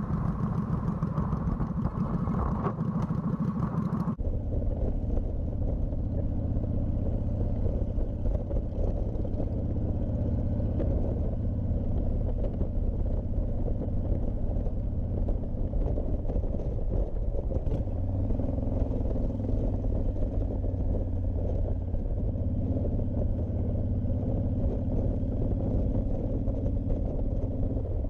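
Honda VTX1300C V-twin running steadily while the motorcycle is ridden, with a low road rumble. For the first four seconds a rushing hiss sits over it, then cuts off suddenly.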